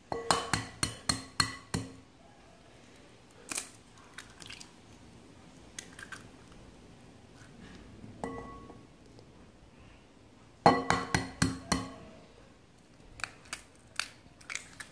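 Eggs knocked against the rim of a glass bowl to crack them, the glass ringing briefly with each knock. Two quick runs of about seven knocks, one at the start and one about eleven seconds in, with a few softer single knocks and clinks between them and near the end.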